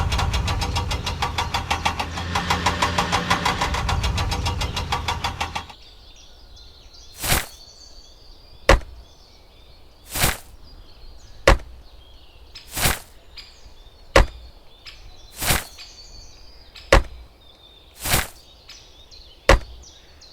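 An engine running with a fast, even pulse that cuts off suddenly about six seconds in. It is followed by a steady series of knocks, about one every second and a half.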